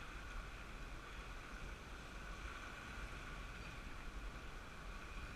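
Surf washing over jetty rocks with wind buffeting the microphone: a steady low rumble and hiss, with a faint constant whine above it.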